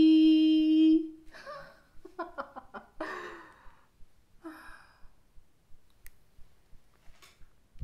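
A woman's voice holds one long steady note for about a second, then breaks into short giggles and breathy laughter, with a sigh.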